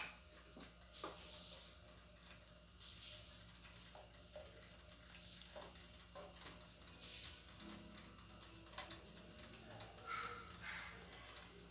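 Faint light scraping and tapping of a silicone spatula stirring caramel in a stainless steel saucepan, irregular soft clicks over a steady low hum.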